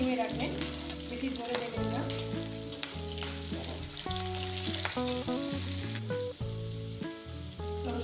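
Garlic and chillies sizzling in hot mustard oil in a metal karahi, stirred with a metal spatula that scrapes and clinks against the pan. Background music with changing low notes plays underneath.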